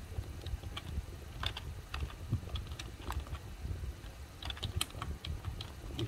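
Typing on a computer keyboard: irregular key clicks, coming closer together about four and a half seconds in.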